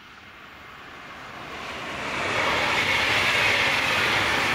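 A VLocity diesel railcar set approaching and passing close by at speed, its rumble and rush growing louder over the first two seconds and then holding steady as it goes past. A faint tone falls in pitch as the train passes.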